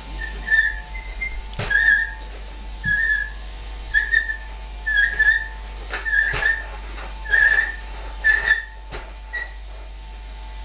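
Vacuum cleaner running, with short high whistles repeating about once a second.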